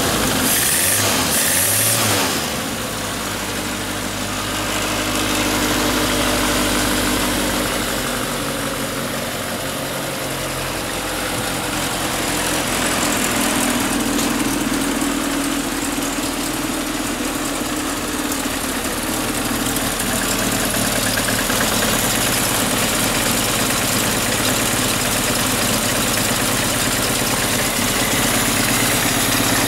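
Suzuki Samurai's 1.3-litre four-cylinder carburetted engine idling while warming up after a cold start at −20 °C. It runs a little faster for about the first two seconds, then settles to a steady idle.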